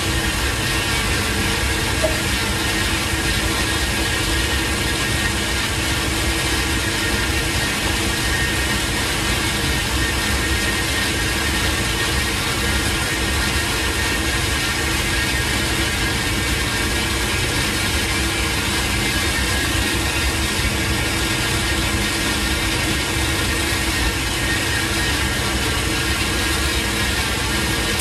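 Steady machine hum and rush of a working commercial kitchen, with several fixed tones held evenly throughout and a short clink about two seconds in.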